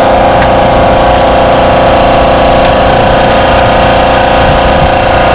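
Rainman portable watermaker's 115-volt electric motor and high-pressure pump running steadily under load, a loud constant hum, with the system up at its working pressure of about 800 psi in the green zone.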